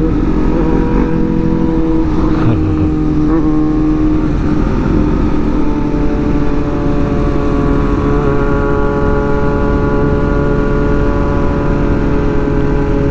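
Sport-bike engine and exhaust running while riding, with the revs shifting a little in the first few seconds, then holding steady at cruising speed.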